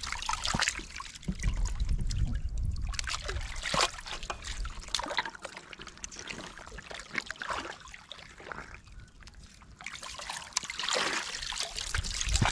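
Shallow muddy water splashing and sloshing in irregular bursts as arms grope under a rock in a pool, with trickling and dripping between. The splashing gets louder near the end as a woven bamboo basket is lifted out of the water.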